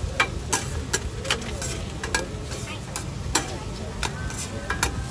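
Wide metal spatulas scraping and clacking across a large iron griddle, with sharp, irregular scrapes about twice a second over a faint sizzle of frying food.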